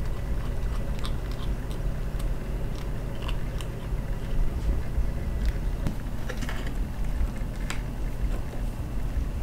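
Kitten purring close to the microphone, a steady low rumble, with scattered small clicks.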